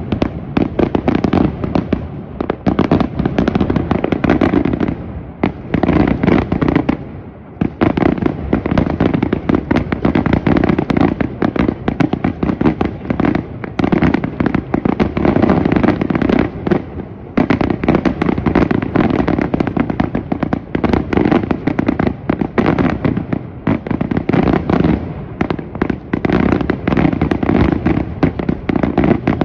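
Aerial firework shells bursting in a dense, rapid barrage of loud bangs that overlap almost without a break, dropping off briefly a few times.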